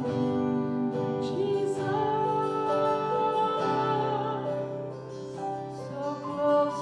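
Music: a voice singing slow, held notes over strummed acoustic guitar.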